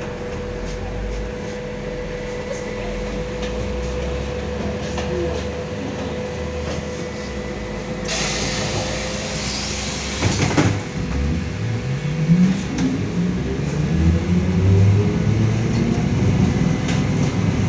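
LiAZ-5280 trolleybus heard from inside: a steady electrical hum with a held tone, then a couple of seconds of air hiss. After that the DK-213 traction motor's whine rises in pitch in steps as the trolleybus pulls away, with a few clicks from its rheostat-contactor control.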